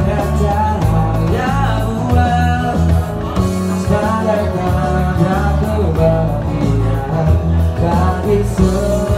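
Live band music with a man singing a pop song into a microphone over amplified band accompaniment.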